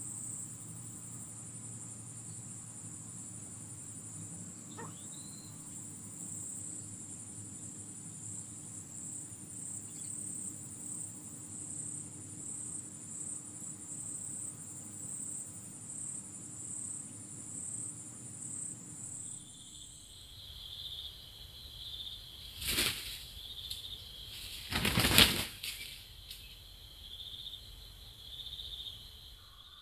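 Two loud flurries of wingbeats from red junglefowl cocks clashing near the end, the second louder and longer: a wild cock fighting the decoy cock. Before them, insects trill in a steady high pulsing chorus, which changes abruptly to another high chorus about two-thirds through.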